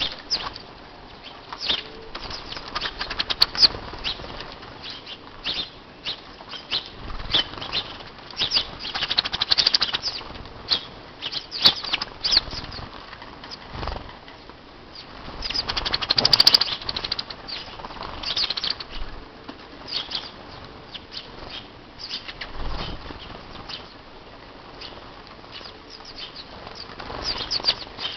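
Small birds such as house sparrows at a feeding spot, their wings flapping in repeated irregular flurries as they fly in and out and jostle over food, with short chirps among them.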